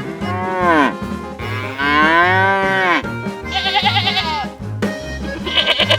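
Cow mooing sound effects, several drawn-out calls that slide down in pitch, over background music with a steady beat.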